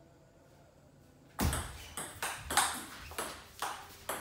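Table tennis rally: the celluloid-type ball clicking sharply off bats and table in quick alternation, about three hits a second, starting about a second and a half in after a short pause.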